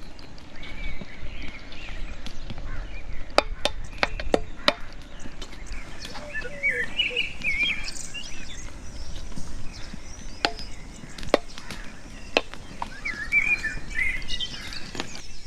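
Birds chirping, with a series of sharp knocks: a quick run of about five a little over three seconds in, then three more spaced about a second apart.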